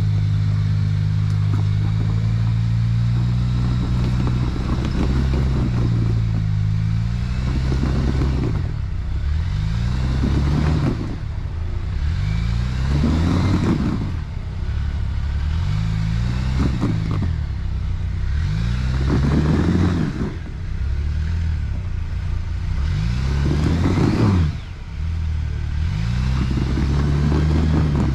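Jeep Wrangler Rubicon engine running steadily, then revved up and let back down about seven times, a swell every two to four seconds.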